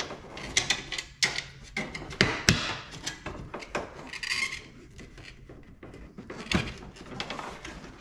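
Carbon fiber wheel well extension being pressed and tucked by hand into the plastic wheel liner: irregular small clicks, taps and rubbing, with a short scraping scuff about four seconds in.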